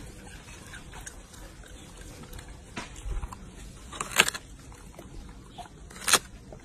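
A macaque biting into a whole watermelon: a few short, wet crunches, the loudest about four seconds in and another about six seconds in.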